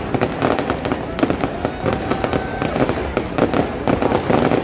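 Fireworks display going off: a dense, continuous run of overlapping bangs and crackles.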